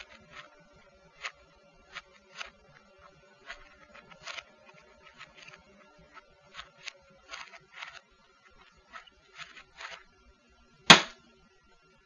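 Plastic Rubik's cube being twisted: an irregular string of quick clicks as the layers turn. About eleven seconds in, one much louder knock as the cube is set down on the desk.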